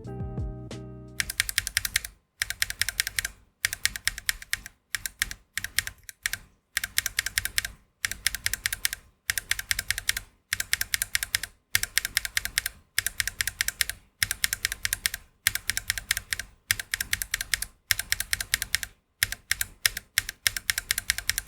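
Fast typing on a mechanical keyboard fitted with Gateron Smoothie switches, in rapid runs of keystrokes broken by short pauses about every second. A brief bit of music plays before the typing starts about a second in.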